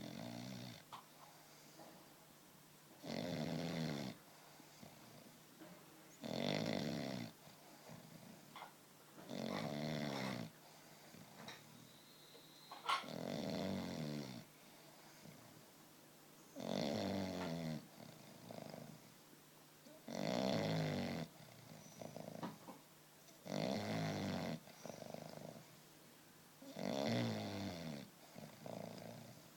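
English bulldog snoring in its sleep: a snore about every three and a half seconds, each lasting about a second, with softer breaths between. A brief sharp click about halfway through.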